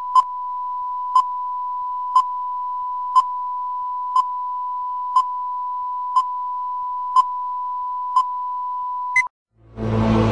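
Countdown leader sound: a steady, high electronic test tone with a sharp tick once a second, nine ticks in all, ending in a short higher blip and cutting off about nine seconds in. Music starts up just before the end.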